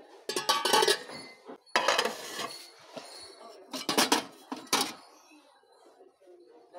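Stainless steel pots and pans clanking and clinking as they are handled, in several short bursts.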